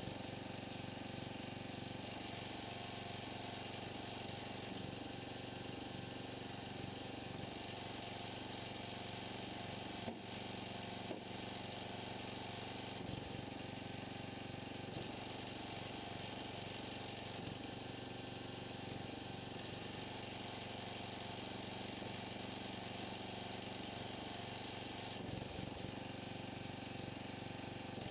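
An engine running at a steady speed, with two short sharp knocks about ten and eleven seconds in.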